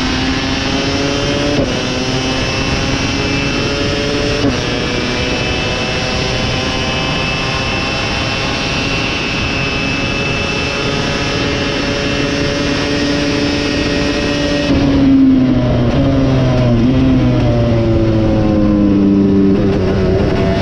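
KTM 250 SX two-stroke motocross bike engine running hard under race load. The pitch drops sharply twice in the first few seconds at gear changes, then rises and falls with the throttle later on.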